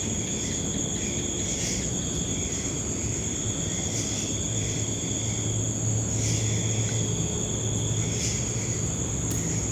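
A steady, high-pitched insect trill, typical of crickets at night, over a low steady hum, with a few faint clicks.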